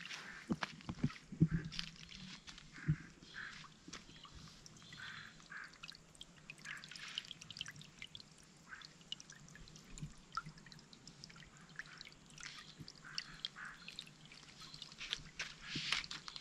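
Small shallow stream trickling and bubbling over rock, with a few footstep knocks in the first couple of seconds.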